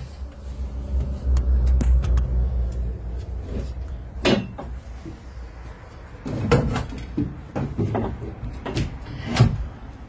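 Knocks and clunks of fairground ride parts being shifted and climbed over inside a box truck's cargo body, with a low rumble in the first couple of seconds and several sharper knocks in the second half.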